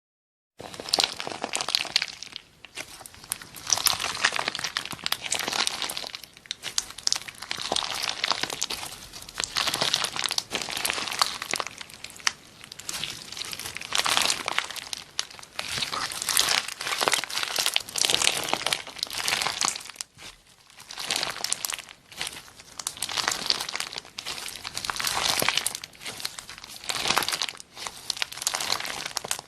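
Slime being squeezed and worked by hand, giving a dense crackling and popping that comes in repeated surges every couple of seconds.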